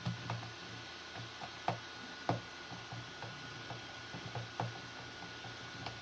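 Small screwdriver working in the centre of a Yuxin 11x11 puzzle cube during disassembly: irregular light clicks and taps of metal on plastic pieces, the sharpest about two seconds in and again near the two-thirds mark.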